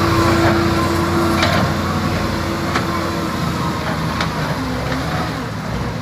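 Bulldozer's diesel engine running steadily under load, with a few sharp metallic clanks about every second and a half.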